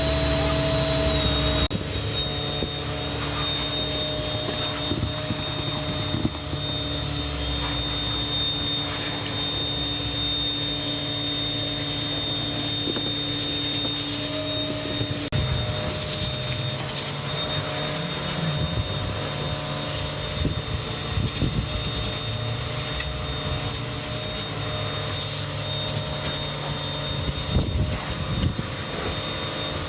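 Vacuum cleaner motor running steadily with a high whine, its tone shifting a couple of times, with rubbing and scraping noises of cleaning over it.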